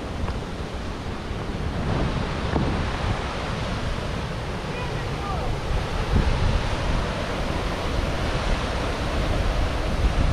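Steady rush of a mountain waterfall, with low wind rumble on the microphone; the water noise grows louder toward the end.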